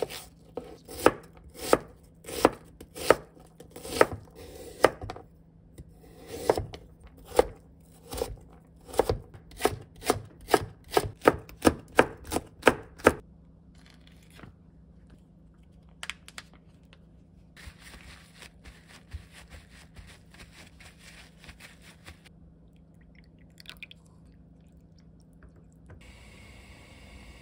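Chef's knife dicing onion on a cutting board: regular chopping knocks, slow at first and then a quicker run of about two or three chops a second, which stop about halfway through. After that there are only faint, scattered handling sounds.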